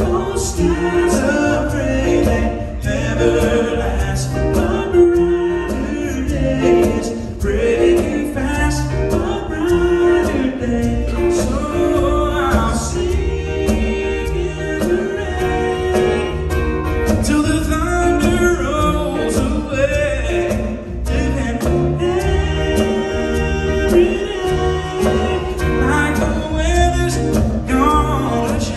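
Live acoustic music: two acoustic guitars strumming under men singing.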